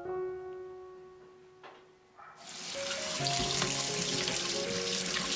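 Kitchen tap water running onto a bamboo basket of raw prawns in a stainless-steel sink, splashing as a hand rinses them; it starts suddenly about two seconds in. Before it, gentle background music, which carries on quietly under the water.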